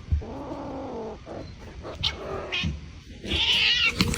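Domestic cat yowling in several drawn-out calls, the loudest and highest near the end.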